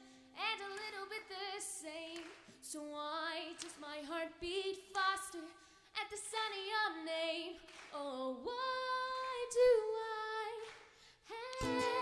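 A young woman singing a song solo through a microphone, her voice wavering in vibrato on held notes, with little or no accompaniment; ukulele strumming comes back in near the end.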